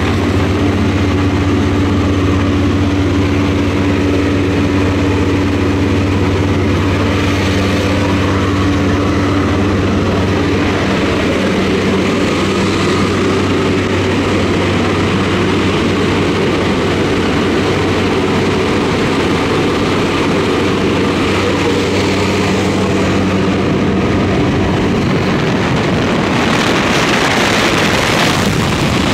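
Jump plane's engines droning steadily inside the cabin, with a low steady tone whose pitch shifts about a third of the way through. A louder rushing noise builds near the end.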